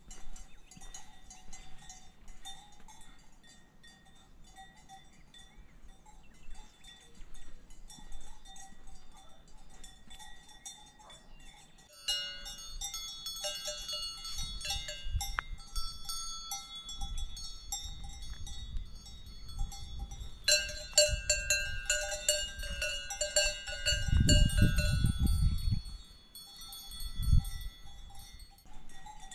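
Cowbells clanking irregularly, several bells at different pitches ringing over one another; sparse at first, they grow denser about twelve seconds in and loudest about twenty seconds in. Low rumbling bursts come and go in the second half, strongest about twenty-four seconds in.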